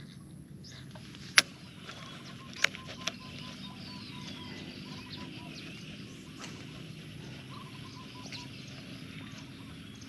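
Open-country ambience with birds calling and a low steady hum. It is broken by three sharp clicks, about a second and a half, two and a half and three seconds in, the first the loudest.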